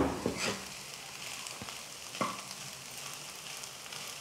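A steel spoon stirring cooked rice and ghee in a non-stick kadai, knocking and scraping against the pan a few times, loudest right at the start, over a faint steady sizzle.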